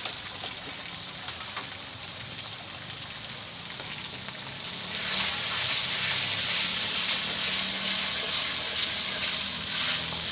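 Ground spices (ginger, galangal and turmeric) sizzling as they fry in hot oil, a steady hiss that grows louder about halfway through.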